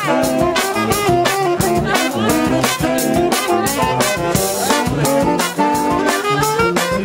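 Street brass band (fanfare) playing live: trombones, trumpets and saxophone in a busy, jazzy tune over a steady drum-and-cymbal beat.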